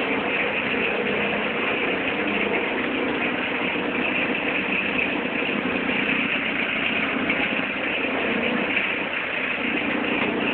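Citroën Xantia 1.9 turbodiesel engine idling cold, steady, with a strange noise from the auxiliary drive belt area that the owner links to the damper pulley.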